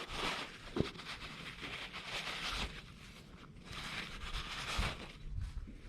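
Paper towel wiping the inside of a freshly honed two-stroke cylinder, in several scratchy swipes of about a second each, with a couple of light knocks of the cylinder being handled.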